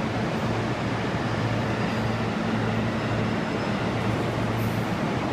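205-series electric train cars rolling slowly along a station platform as they come in to stand: a steady rumble with a low, even hum.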